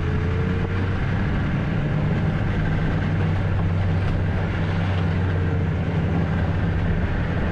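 Yamaha snowmobile engine running steadily under way at an even cruising speed, a constant low drone over a steady hiss.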